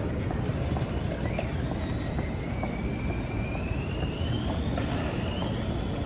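Steady city street traffic noise, with a high-pitched whine from a vehicle that rises slowly in pitch from about a second in.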